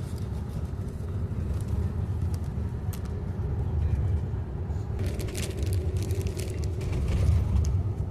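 Steady low rumble of a coach bus on the move, engine and road noise, with a few light clicks and rattles.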